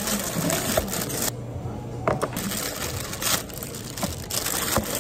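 Clear plastic carry bags rustling and crinkling as lidded paper takeout coffee cups are slipped into them, with a few light knocks of the cups against the counter.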